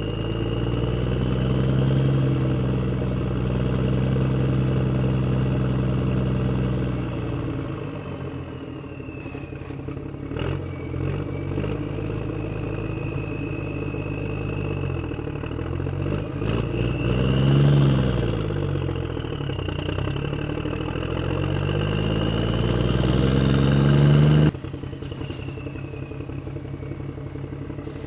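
Motors of a HuiNa radio-controlled toy excavator running, their pitch rising and falling again and again as it works, with a few sharp clicks in the middle. The sound drops suddenly and turns steadier near the end.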